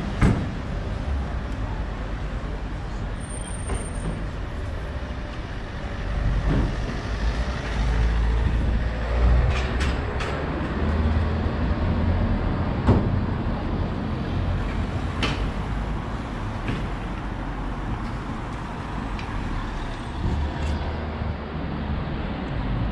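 Street traffic in a town centre. A heavier vehicle's engine rumble swells about six seconds in and fades after about thirteen seconds, over a steady traffic hum, with a few sharp clicks.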